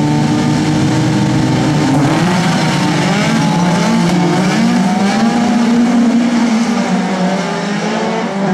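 Several rallycross cars revving hard together on the start grid, their engines wavering up and down in pitch, then launching off the line at full throttle.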